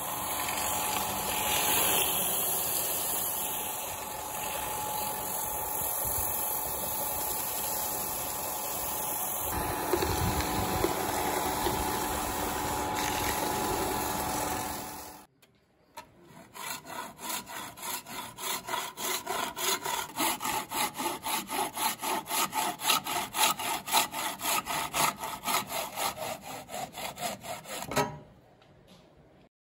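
Wood-and-epoxy bowl spinning on a wood lathe while being sanded by hand, a steady rasping scrape. About halfway through it cuts off, and then a wooden piece is sanded against a moving abrasive surface with a fast, regular pulsing scrape that stops shortly before the end.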